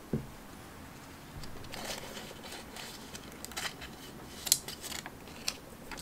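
Paper being handled on a wooden tabletop: a soft knock just after the start, then sheets of vellum and card rustling and crinkling, with a few sharp clicks, the loudest about four and a half seconds in.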